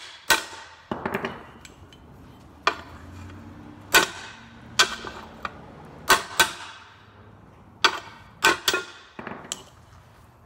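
Hammer blows on metal, about a dozen sharp clanks at an uneven pace, each with a short metallic ring. They are driving a new bushing into a 2005 Subaru Outback's control arm.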